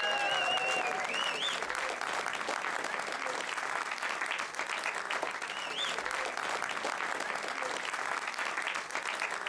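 A cinema audience applauding steadily, dense clapping from many people, with high whistles near the start and again about six seconds in.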